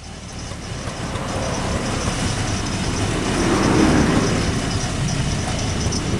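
Auto-rickshaw engine running with road noise, heard from inside the open cabin. It builds over the first couple of seconds and swells loudest about four seconds in.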